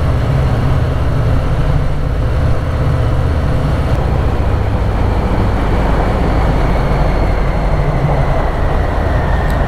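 2020 Harley-Davidson Heritage Softail's Milwaukee-Eight V-twin running steadily at cruising speed, its exhaust note echoing off the walls of a rock road tunnel.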